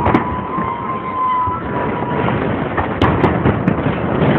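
Fireworks salute going off: a sharp bang just after the start and three more bangs about three seconds in, over steady background noise, with a thin whistle that fades out about a second and a half in.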